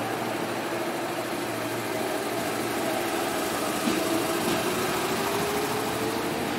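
JR 205 series 3100 electric train running past at low speed, a steady mechanical rumble. A hum rises slowly in pitch over the last few seconds.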